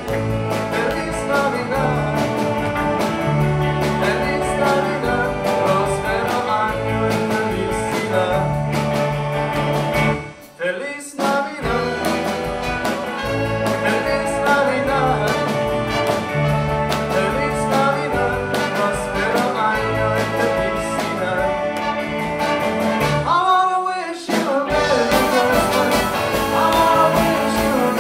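Live rockabilly swing band with electric guitars, upright double bass, drums and a horn section of trumpets, trombone and saxophone, playing a swinging rockabilly number. The band stops briefly twice, about ten seconds in and about four seconds before the end.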